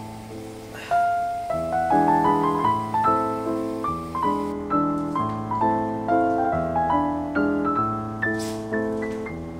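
Background piano music: a gentle melody over chords, with notes struck in a steady, even rhythm.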